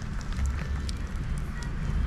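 Wood bonfire crackling with scattered sharp pops, over a steady low rumble.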